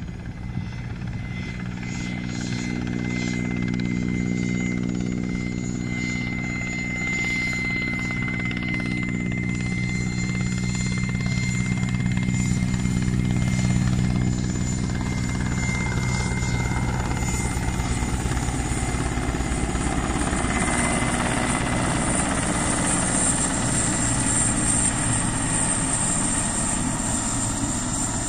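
Helicopter in flight: the steady beat of its rotor with a high engine whine, growing louder over the first few seconds, then giving way to a rougher, noisier rotor wash later on.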